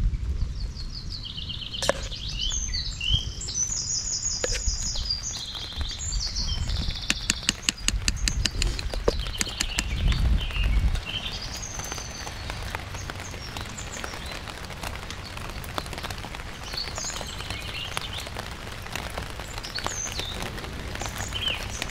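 Songbirds chirping in quick series of high notes over a steady patter of rain, with a run of sharp clicks about a third of the way through.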